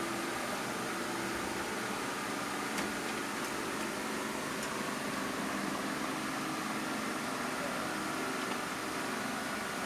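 Steady fan-like hum of room noise, with one faint click about three seconds in.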